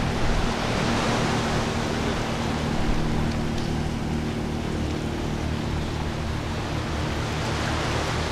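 Steady rush of wind and surging inlet water, with a low, steady engine drone from a motorboat running across the inlet.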